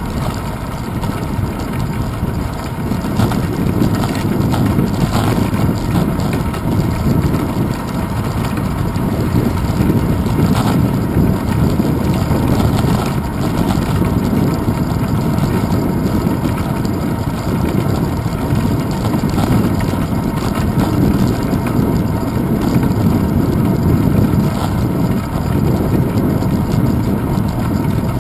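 Steady low rumble of wind and road vibration picked up by a handlebar-mounted GoPro Hero 2 on a bicycle riding over a paved path, with a few faint ticks.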